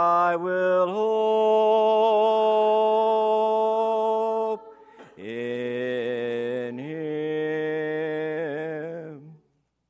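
Church congregation singing unaccompanied, in unison, the closing words 'in Him', drawn out over two long held notes. The singing stops about half a second before the end.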